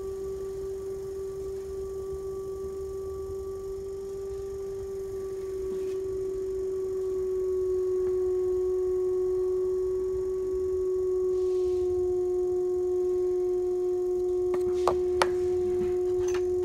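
Electric potter's wheel motor running with a steady whine that drops slightly in pitch and gets louder a few seconds in. A few sharp clicks near the end.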